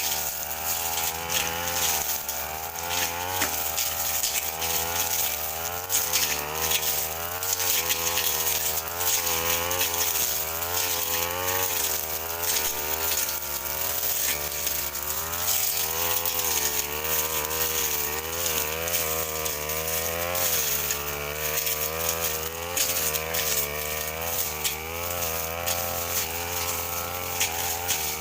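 Brush cutter engine running continuously while cutting grass and brush, its pitch wavering up and down as the blade bites and frees.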